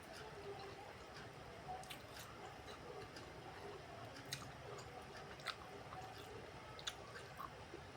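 Faint close-up chewing of a mouthful of rice, peanut-sauced vegetables and battered fried tempeh, with a few short crisp clicks at intervals of about a second and a half.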